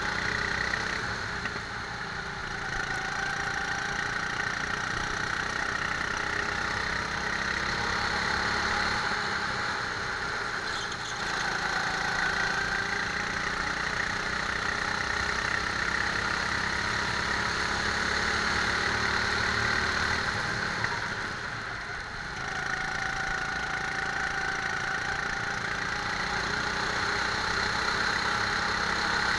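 Rental go-kart engine running under throttle, heard from on board the kart. Its note dips and picks back up three times: about two seconds in, around ten seconds in, and around twenty-one seconds in.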